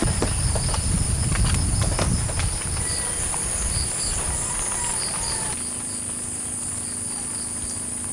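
Insects outdoors: a steady high-pitched drone with a repeating chirp pulsing beneath it. A low rumble and a few scattered ticks sound in the first couple of seconds.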